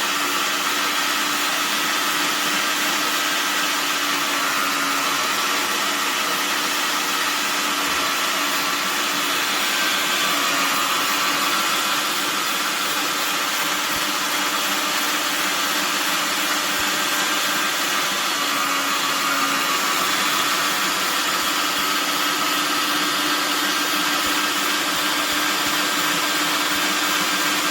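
Paderno electric meat grinder's 400 W motor running steadily while grinding meat, a constant hum and whir whose pitch holds even as meat is fed through the head.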